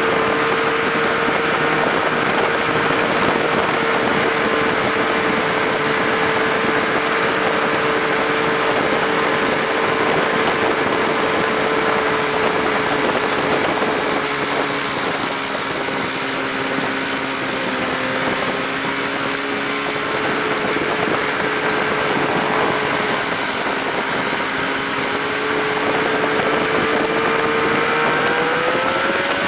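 A mini buggy's 600cc snowmobile engine running at a fairly steady speed while under way. It eases off a little in the middle and revs up near the end, over a steady hiss.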